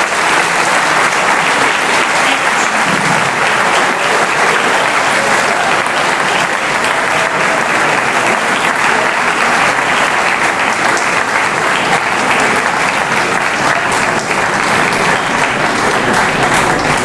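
Audience applauding: a long, steady round of clapping that does not let up.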